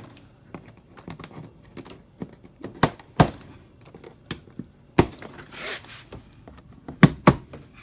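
A cardboard box being slit open with a razor blade and handled: sharp knocks and taps against the cardboard, with a second or so of scraping and tearing past the middle.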